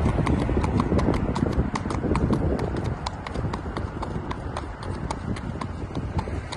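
Horse's hooves clip-clopping on a concrete sidewalk at a walk, about four sharp strikes a second, over a steady low rumble.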